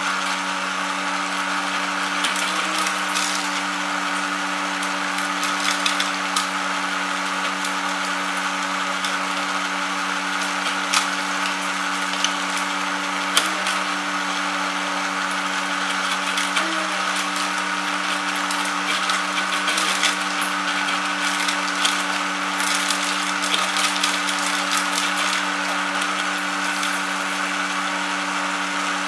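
Sunflower-seed (kuaci) shelling machine running steadily: a small motor's even hum with scattered clicks and rattles over it.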